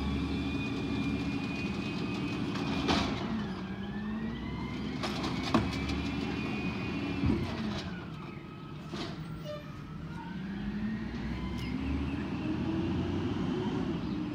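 Diesel engine of a Peterbilt 320 garbage truck with an Amrep side-loader body, revving up, holding and dropping back about three times as it works, with several sharp knocks from trash carts being handled and dumped.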